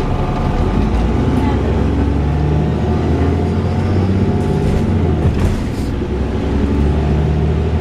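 VDL DB300 double-decker bus's diesel engine running with a loud whirring drone, its note stepping up and down in pitch a few times, with a brief dip in level about six seconds in.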